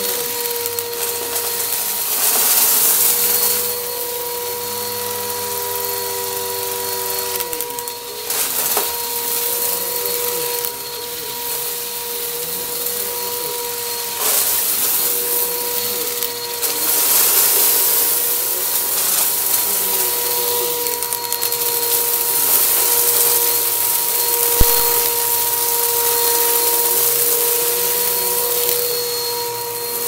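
Bissell Helix Turbo bagless upright vacuum running with a steady motor whine, its suction noise swelling and easing as it is pushed back and forth over carpet, with crunchy debris rattling up the nozzle. One sharp click late on.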